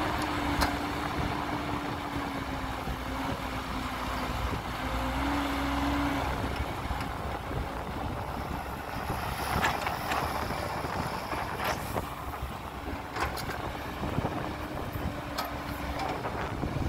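Diesel engine of heavy earthmoving machinery running steadily, its hum dipping slightly in pitch now and then, with a few sharp knocks scattered through.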